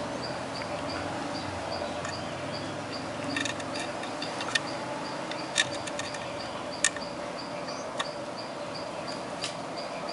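An insect chirping steadily in high, even pulses about three times a second. Several light clicks of small electronic parts being handled, the sharpest about halfway through.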